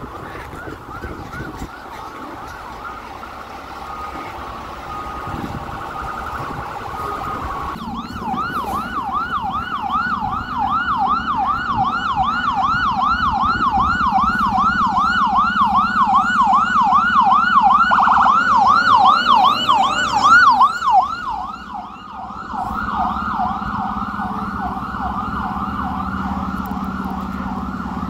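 Electronic emergency-vehicle siren from an FDNY battalion chief's SUV. It starts as a slower, fainter wail and switches about eight seconds in to a loud, fast yelp of about two to three sweeps a second, with a steady low hum underneath.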